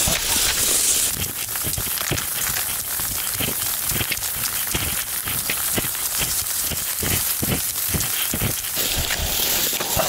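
Cross-country skis swishing and crunching along a snowy ski track, with irregular knocks through it.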